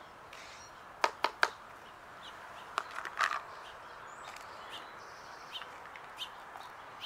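Sharp clicks and taps of a plastic food container being opened and tapped to shake out cat food: three quick clicks about a second in and two more around three seconds. Faint bird chirps over a steady background hiss.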